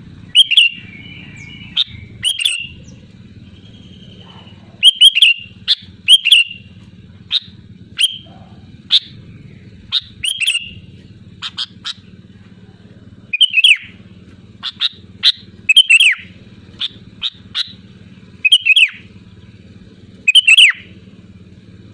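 Sooty-headed bulbul (kutilang) calling loudly: short, bright, slightly falling notes repeated every one to two seconds, over a steady low hum.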